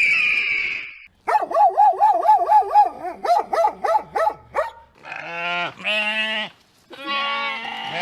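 A quick run of short, repeated pitched animal calls lasting about three seconds, then two long, wavering bleats from farm livestock.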